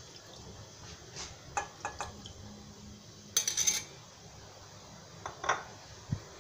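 Glass and stainless steel bowls clinking and knocking as orange juice is poured from one into the other and the glass bowl is put down on a marble counter. There are a few light clicks, a brief clatter about three and a half seconds in, and a soft knock near the end.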